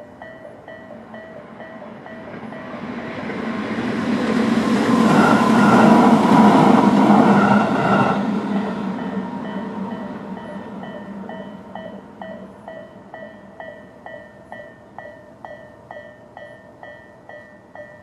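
A Tobu 20400-series electric train runs over the crossing. Its rumble builds from about three seconds in, is loudest around six to eight seconds, and dies away by about twelve seconds. The crossing's electronic warning bell, Tobu's 'type A' tone, keeps ringing in a steady repeating beat and stands out again as the train fades.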